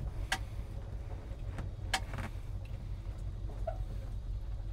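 Old farm truck's engine running with a steady low rumble as the truck rolls slowly, with two sharp clicks, one near the start and one about two seconds in.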